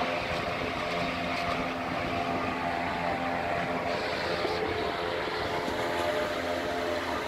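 A steady machine hum with several constant tones running through it, unchanging in level.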